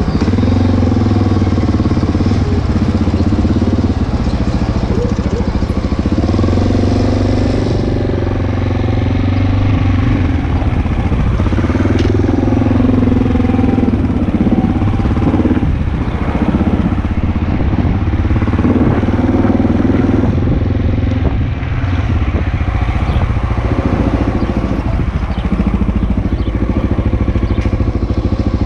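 Motor vehicle engine running continuously, its pitch rising and falling every few seconds.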